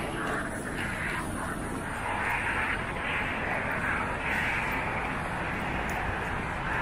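Steady vehicle noise of a busy street, swelling and easing a little every second or two.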